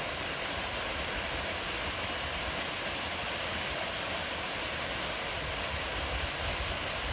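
Steady rush of water from a 15 m straight-drop waterfall, an even unbroken noise.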